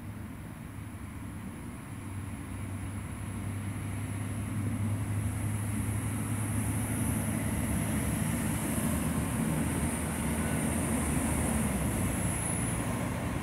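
Diesel regional multiple unit running into the station: a steady low engine drone that grows louder as the train comes closer, with a thin high whine above it.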